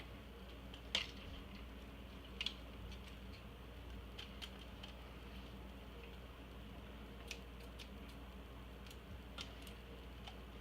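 A handful of scattered light clicks and taps from tools and plastic parts being handled during disassembly, the sharpest about a second in, over a steady low hum.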